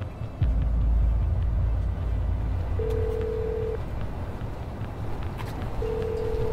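Telephone ringback tone heard down the line, two steady one-second beeps about three seconds apart, over the low rumble of a subway train running.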